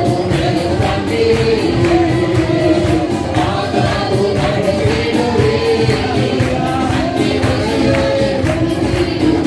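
A group of worship singers, men and women, singing a Malayalam Christian worship song together through microphones over a steady percussive beat.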